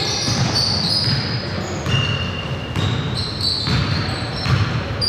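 Basketball game play on a gym court: the ball bouncing in repeated low thumps, with many brief, high-pitched sneaker squeaks on the floor.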